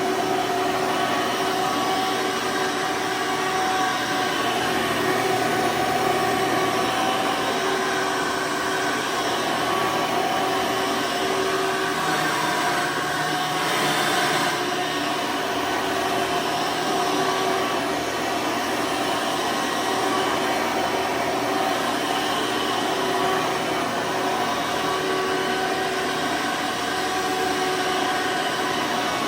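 The 12-amp motor of a 2003 Hoover Soft & Light Supreme (Elite) upright vacuum with a 20-blade fan runs steadily at full power. It makes a dense rushing whine with steady tones in it, and the hiss rises briefly about halfway through. It is very loud, which is natural for this 12-amp motor and not a fault.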